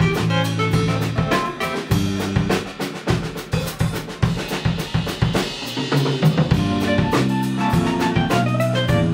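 Live bossa nova played by a trio of electric bass, keyboard and drum kit, with the drums keeping a busy, even beat under held bass notes.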